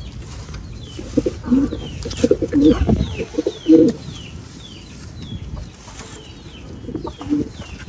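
Domestic pigeons cooing, several low coos in the first half and more near the end, over a steady run of short, high, falling chirps from another bird.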